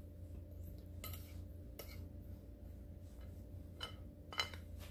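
Metal spoon stirring dry ground spices and gram flour on a plate, with a few light clinks and scrapes of the spoon against the plate.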